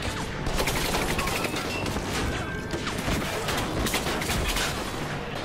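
Rapid gunfire, many shots fired in quick succession as a volley, with bullet impacts.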